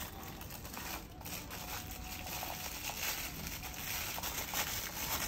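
Packaging being handled during an unboxing: continuous crinkling and rustling of wrapping with small clicks and taps.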